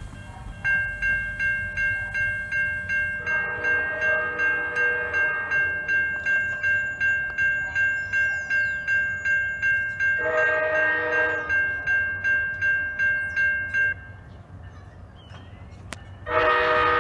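Railroad grade-crossing bell ringing rapidly, about two strokes a second, while an approaching train sounds its horn: a long blast, a short blast, then another long blast starting near the end. The bell stops a couple of seconds before the last blast.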